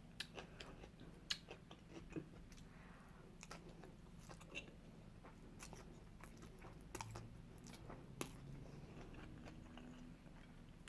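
A person chewing and eating food, faint, with irregular small clicks and taps throughout.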